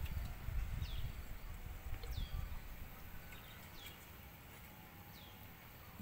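A bird repeating a short, falling chirp every second or so, over a low rumble that fades about halfway through.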